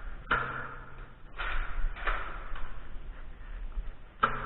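Two sharp clacks about four seconds apart, each followed by a brief low hum, with rustling between them: a Nerf blaster being handled and fired.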